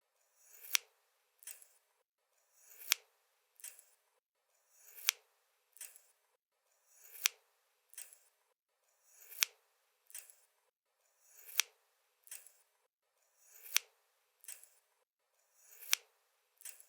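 A pair of scissors working repeatedly: each stroke swells into a sharp snip, followed by a softer click about three-quarters of a second later, the pair repeating steadily about every two seconds.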